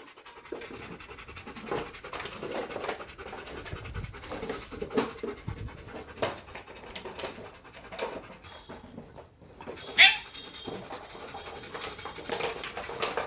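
Belgian Malinois panting with its mouth open, a few breaths a second, with one short, sharp, louder sound about ten seconds in.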